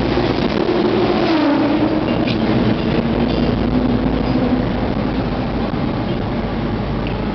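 Car driving through a road tunnel: steady engine and tyre noise heard from inside the car, with a low hum that slides slightly lower over the first few seconds.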